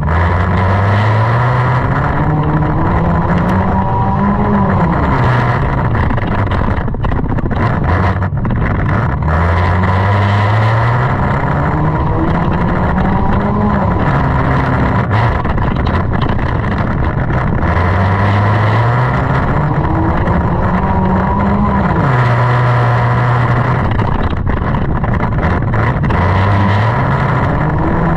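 Junk race car's engine accelerating and easing off again and again under racing, its pitch climbing for a second or two and then dropping, over a constant rumble of noise.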